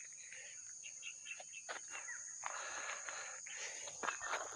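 Insects trilling steadily at a high pitch, fairly quiet, with a few faint clicks and rustles over it.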